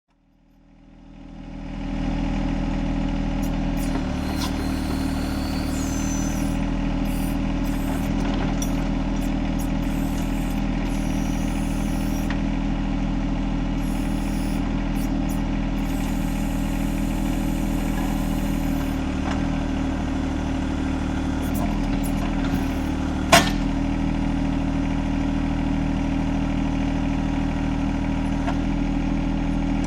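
John Deere 1025R compact tractor's three-cylinder diesel engine running steadily while working the backhoe; it fades in over the first two seconds. A single sharp clank comes about three quarters of the way through.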